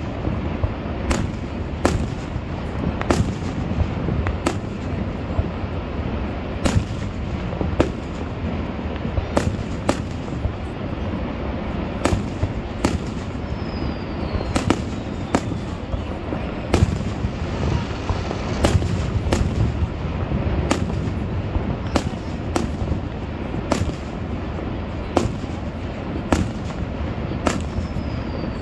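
Aerial fireworks display: shell bursts going off as sharp bangs at irregular intervals, about one a second, over a steady low rumble, with a couple of faint falling whistles.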